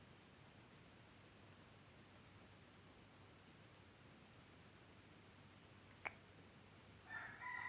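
Faint, steady cricket chirping: a high, fast pulsing trill. A rooster starts crowing near the end, with a single faint click shortly before.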